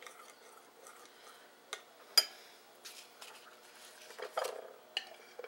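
Metal spoon clinking against a ceramic bowl while stirring a sauce: a few scattered light clinks, the sharpest about two seconds in with a short ring.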